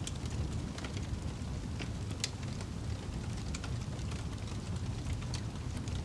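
Wood fire burning in a fireplace: a steady low rumble with scattered crackles and pops, one sharper pop about two seconds in.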